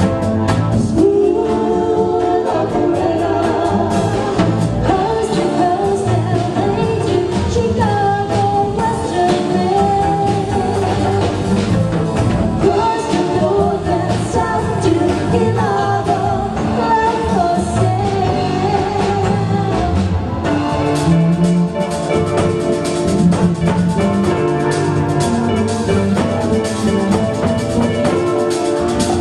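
A live dance band playing a smooth pop song, with a lead singer's voice over the band.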